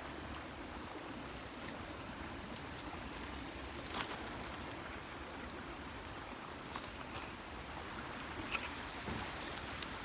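Steady rushing of flowing creek water, with a couple of faint clicks about four seconds in and again near the end.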